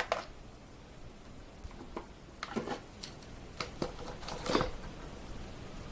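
A few short clicks and scrapes, several seconds apart, of small parts and tools being handled during repair work on a mandolin.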